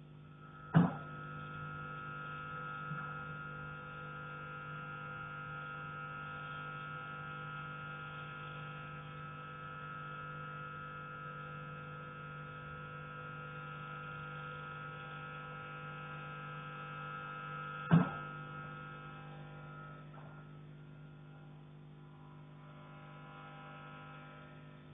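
Two loud, sharp knocks on a heating pipe, struck from the attic, about 17 seconds apart. A steady hum with several pitched tones runs under them and eases off near the end.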